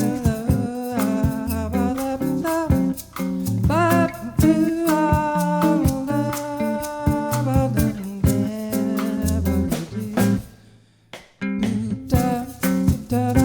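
A small jazz band playing live: a melody with bending, gliding notes over plucked bass notes and chords. The music breaks off into a short near-silent pause about ten and a half seconds in, then the band comes back in.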